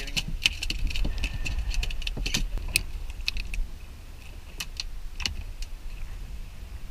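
Scattered sharp clicks and knocks of gear being handled, over a steady low rumble.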